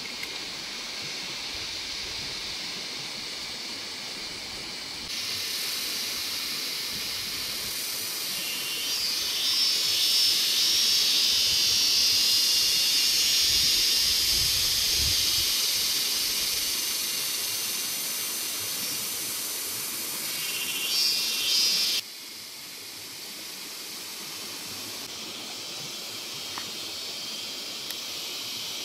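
A steady, high-pitched, shrill chorus of insects in tropical vegetation. It swells louder about a third of the way in and drops suddenly about three quarters of the way through.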